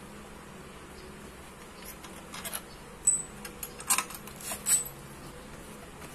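Light metal clinks and taps of a T-wrench and bolts being worked on a scooter's metal magneto inner cover. A cluster of sharp clinks, some with a brief high ring, comes in the second half over a faint steady hum.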